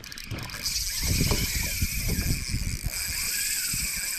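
Spinning reel's drag buzzing steadily as a hooked golden perch takes line, starting about half a second in, over low knocks of handling.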